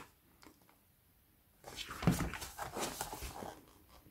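A paperback book being handled and turned over in the hands, its cover and pages rustling with small taps for about two seconds, starting a second and a half in.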